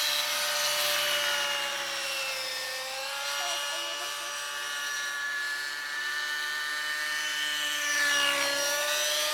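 Radio-controlled model helicopter flying, a steady high whine whose pitch dips briefly twice, about two and a half seconds in and again near the end, then recovers.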